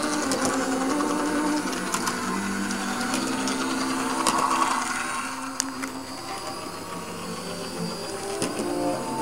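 Small electric motor of a motorised HO-scale model tram whining steadily as it runs along the track, with occasional light clicks.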